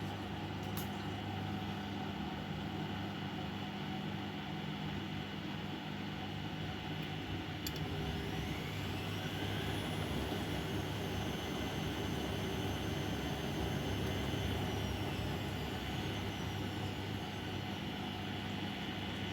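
Bosch Maxx WFL 248Y front-loading washing machine running under a steady hum, with two short clicks. About 8 seconds in, its drum motor whines up in pitch, holds for several seconds, then winds back down.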